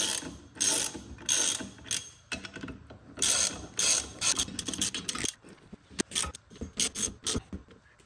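Hand ratchet with a 19 mm socket clicking on its back-swings as the bolts of a ball joint press tool are tightened in turn. There is a run of longer ratcheting strokes at first, then shorter separate clicks in the second half.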